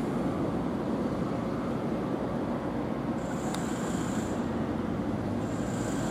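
Diesel engine of a Hitachi ZX135US hydraulic excavator running steadily as it digs riverbed sediment. A thin high whine comes in about three seconds in and again near the end.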